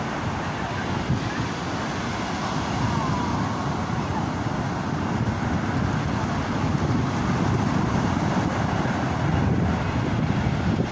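Atlantic Ocean surf washing onto a beach, a steady rushing with wind buffeting the microphone.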